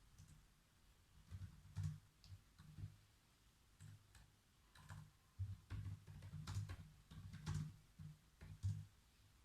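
Typing on a computer keyboard: irregular bursts of soft keystroke clicks, each with a dull low thud, with short pauses between bursts.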